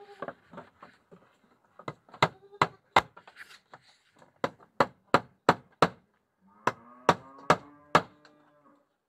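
Goats in a pen: a short bleat at the start and a longer, steady bleat near the end, over an irregular series of sharp knocks, two or three a second, that sound like chopping.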